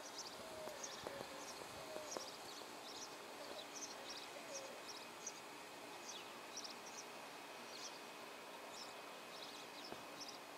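Small birds chirping, with short high notes scattered throughout. A lower repeated call sounds about once a second through the first half.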